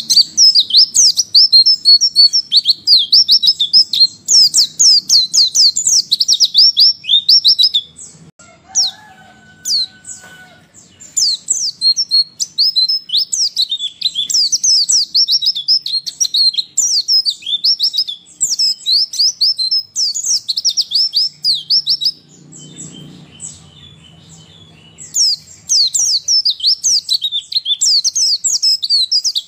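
White-eye (pleci) twittering: rapid high-pitched chirps in three long bouts, with short pauses about eight and twenty-two seconds in. It is a female white-eye's call, used as a lure to set caged males singing.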